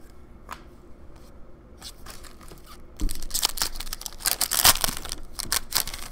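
A foil trading-card pack being torn open by hand: a few faint ticks of card handling, then about halfway through a loud burst of wrapper crinkling and ripping lasting around three seconds.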